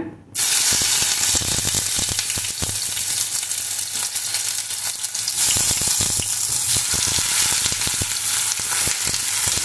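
Whole tomatoes sizzling in hot oil in a stainless steel pan, a steady hiss with many small pops. It starts suddenly as the first tomato goes in and grows louder about five seconds in as more tomatoes are added.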